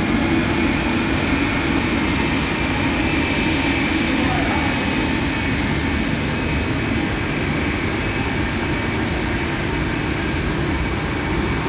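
Boeing C-17A Globemaster III's four Pratt & Whitney F117 turbofans running as it taxis, a steady jet rumble with a thin high whine.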